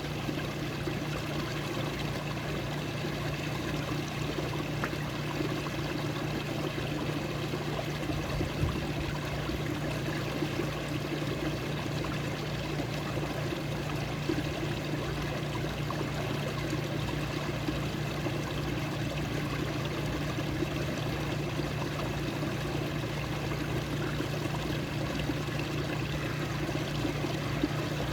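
Running water flowing steadily, like a small stream or trickling outflow, with an even, unbroken rush.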